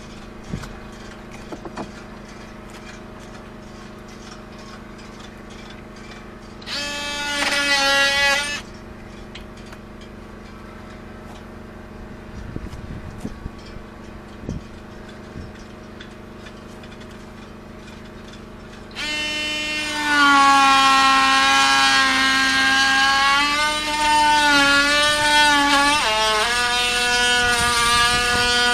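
Handheld power tool held against the boat's wooden planking, running in a short burst and then in a longer run near the end, a steady buzz that dips in pitch as it bites under load.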